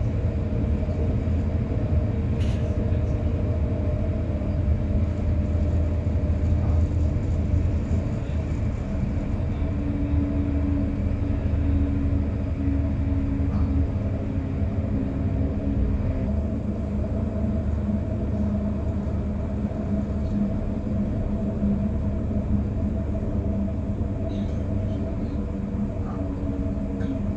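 Inside a passenger train running at speed: a steady low rumble of wheels on track, with a steady hum that drops in pitch about halfway through.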